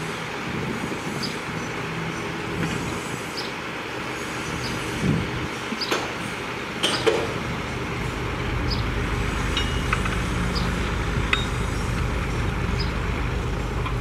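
Diesel engines of a tipping dump truck and a bulldozer running steadily, with scattered sharp clinks and knocks; a deeper engine rumble swells from about eight seconds in.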